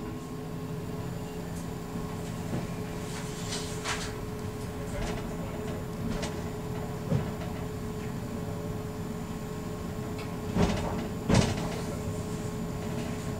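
Ganz-Mavag electric multiple unit running along the track, heard from inside the cab as a steady rumble with a low hum. A few short knocks and rattles break through, the loudest two close together about ten and a half and eleven and a half seconds in.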